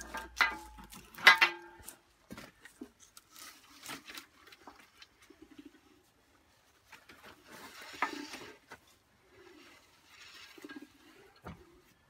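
A steel bar clanking against the flywheel of an Imperial Super Diesel single-cylinder stationary engine as the stiff engine is levered round by hand. Two loud ringing metallic clanks come in the first two seconds, followed by quieter scuffs and knocks, with a thump about 8 seconds in and a knock near the end.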